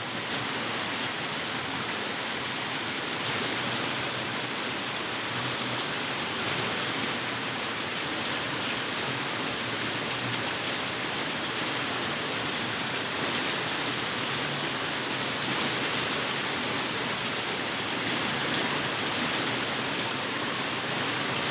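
Steady rush of floodwater from a river overflowing its banks, with heavy rain falling.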